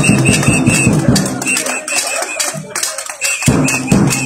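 Rhythmic protest percussion: quick strikes, several a second, each with a short bright ring, coming in runs.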